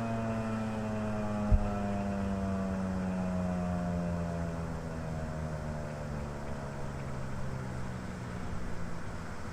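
Federal Signal 2001-130 electromechanical outdoor warning siren winding down after its alert signal, its tone sliding slowly and steadily lower. A single sharp knock sounds about one and a half seconds in.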